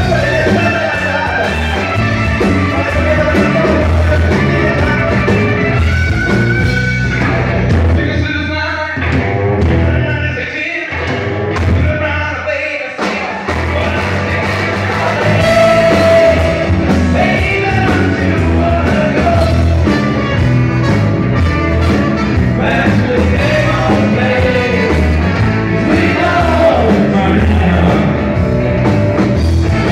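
Live blues band with electric guitar, horn section and vocals playing an up-tempo number. The band drops out briefly a few times around the middle, in stop-time breaks.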